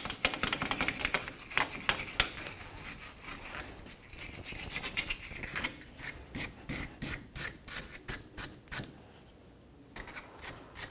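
Hand wire brush scrubbing rust and scale off a car's rear steering knuckle around the wheel-bearing bore, cleaning it before a new hub bearing goes in. Dense scratching at first, then quick back-and-forth strokes about three a second, a brief pause near the end, and the strokes start again.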